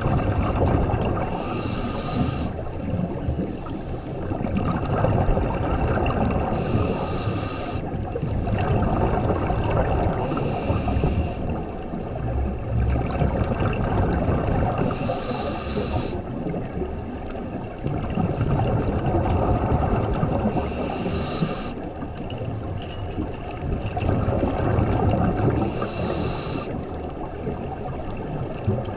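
Scuba diver breathing through a regulator underwater: a hissing inhale six times, about every five seconds, each followed by a low rush of exhaled bubbles.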